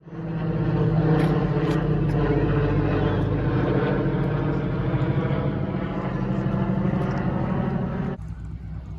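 Large multi-engine airplane flying overhead, its engines giving a loud, steady drone. The drone cuts off abruptly about eight seconds in, leaving fainter outdoor noise.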